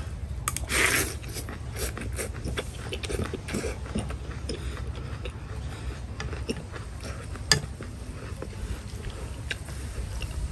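Eating rice-noodle soup: slurping noodles and chewing, with scattered small clicks of chopsticks and a metal spoon against a ceramic bowl, and one sharper click about seven and a half seconds in.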